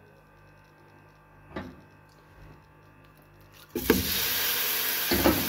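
After a few quiet seconds, minced beef dropped into hot oil in a pot starts a loud, steady sizzle.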